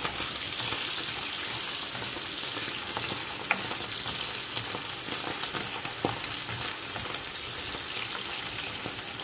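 Halved button mushrooms sizzling in hot oil in a non-stick frying pan as they are stirred, fried until they turn brown. Two light knocks, about 3.5 and 6 seconds in, as the stirring utensil touches the pan.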